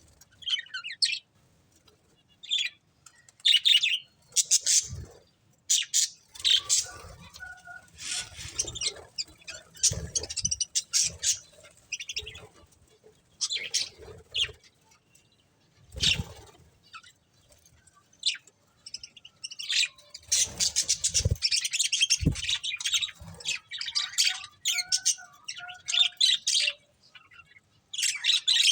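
A pair of budgerigars chirping and chattering in short bursts, with quieter gaps between and denser chatter near the end. A few brief low thumps sound among the calls.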